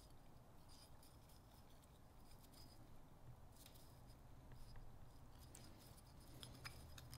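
Near silence with a few faint light clicks and taps from aluminium engine pistons being handled and turned over for inspection.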